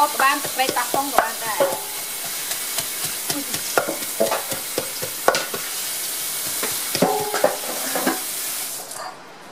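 Wooden pestle knocking irregularly in a heavy clay mortar, many short strikes, over a steady sizzling hiss of frying that cuts off near the end.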